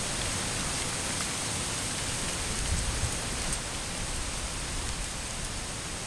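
Steady rushing hiss of a distant waterfall, with faint low rumbles of wind on the microphone now and then.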